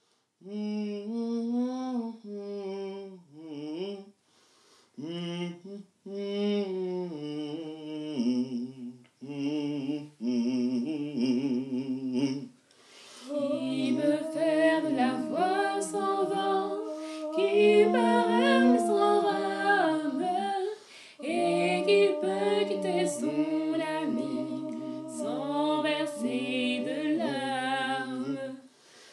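Unaccompanied singing: a single voice hums a melody in short phrases, then about twelve seconds in several voices join and sing together a cappella in harmony.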